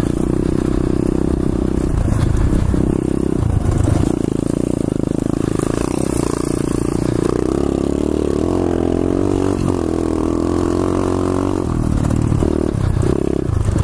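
2015 SSR 125cc pit bike's single-cylinder four-stroke engine running under throttle, heard from the rider's seat, its pitch rising and falling with the throttle as it rides over rough grass.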